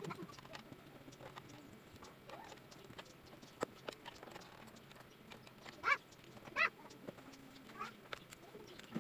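Faint clicks and rustles of cable plugs and microphone parts being handled and fitted into a V8 soundcard. Two short bird calls stand out about six seconds in, with a weaker one near the end.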